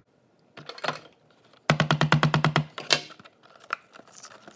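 Clear plastic blister packaging of a toy being handled and opened. There are scattered plastic clicks and crackles, and a fast run of about ten sharp clicks in a second near the middle.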